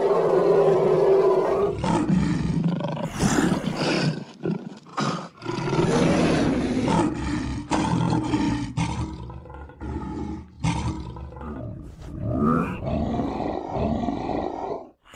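Bowser's monster voice roaring and growling in a run of outbursts with short breaks between them. It stands in for his spoken lines.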